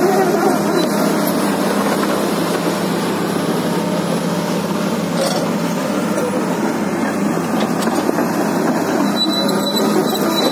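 Komatsu PC300-8 hydraulic excavator's six-cylinder diesel engine running steadily, a constant loud mechanical drone.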